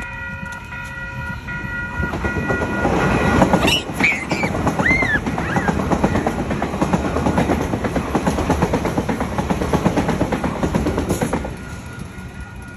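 Auckland AM-class electric multiple unit passing close by, its wheels rumbling and clattering over the track for about ten seconds before fading. Steady level-crossing warning bells ring before the train arrives and again after it has gone past.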